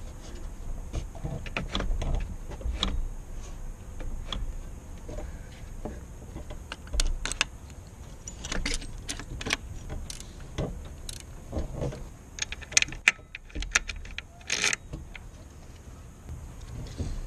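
Scattered metallic clicks and clinks of parts and tools being handled at a car engine's alternator and tensioner bracket, with a louder cluster of sharp clicks about three-quarters of the way through, over a low rumble.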